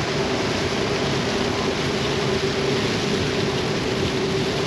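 Waterfall rushing with a loud, steady roar.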